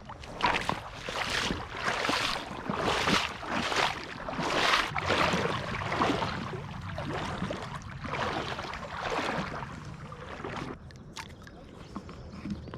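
Footsteps of a person walking steadily through a creek bed, a little more than one step a second, stopping about ten seconds in.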